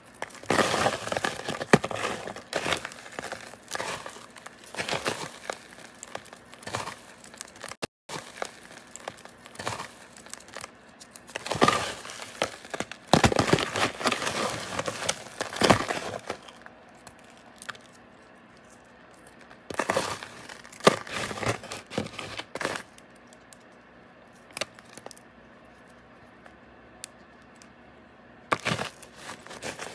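Homemade paradichlorobenzene moth bars being crushed by hand, crunching and crumbling into coarse crystals in bursts of crisp crackling. The crackling is busiest for the first half, then comes as sparser crunches with pauses between.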